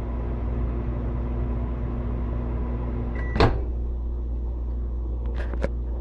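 Microwave oven running with a steady hum that stops about three seconds in at the end of its cycle, with a short beep and a loud click. Near the end, two sharp clicks as the door is released and swung open.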